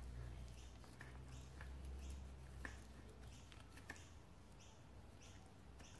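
Near silence, with a few faint clicks and ticks from a plastic fork-seal cleaning tool being worked around a motorcycle fork tube by hand.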